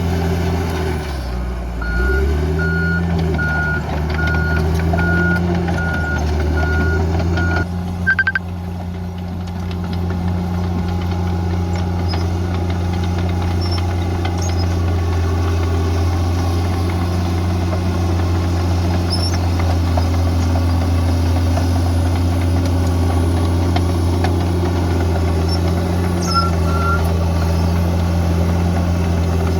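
Bulldozer's heavy diesel engine running steadily, its pitch dipping briefly near the start. A reverse alarm beeps at about two beeps a second for some six seconds, then stops, and there is one short click.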